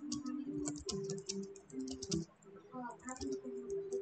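Typing on a computer keyboard: quick irregular runs of key clicks as a sentence is typed, with low held tones underneath.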